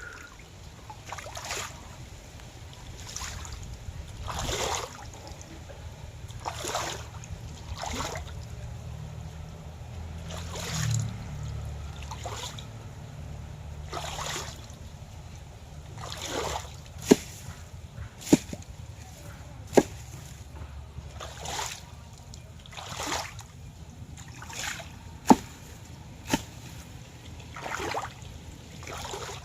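Water splashing and dripping in irregular soft splashes every second or two, with a few sharp clicks in the second half, over a low steady hum.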